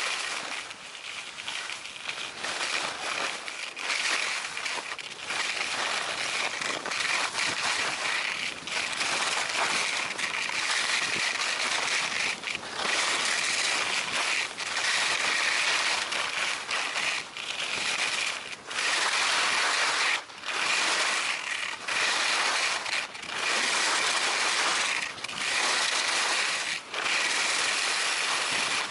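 Skis scraping and carving on groomed piste snow: a steady hiss broken by short gaps at each turn, coming about every one and a half to two seconds in the second half.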